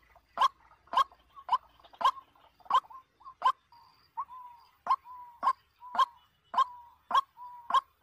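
White-breasted waterhen calling: short, sharp calls repeated about twice a second, each trailing off into a brief steady note, with a short lull near the middle.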